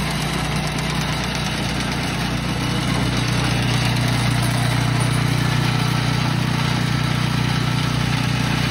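Ecobeach self-propelled beach cleaner's engine running steadily, with an even low hum. It gets a little louder about three seconds in as the machine comes close.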